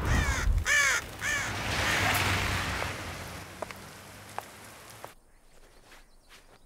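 A crow cawing three times, a little over half a second apart, over a steady hiss that fades and then cuts off about five seconds in.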